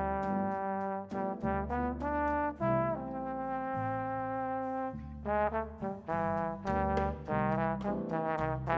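Jazz trombone playing a melodic line, quick notes around one long held note in the middle, accompanied by piano, electric bass and drums with light cymbal strokes.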